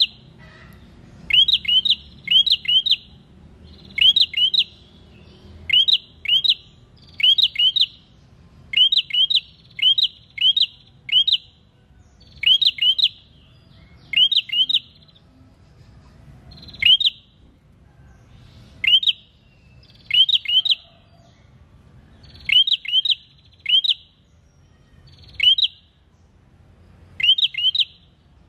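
Caged tailorbird (prenjak) calling: loud, sharp rising chirps in quick bursts of two to four, a burst every second or two.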